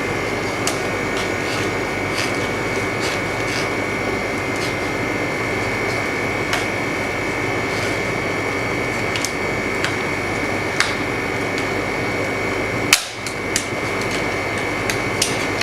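LCD freezer machine running with a steady hum and a thin high whine, with scattered light clicks from hand tools on the screen and one sharper click near the end.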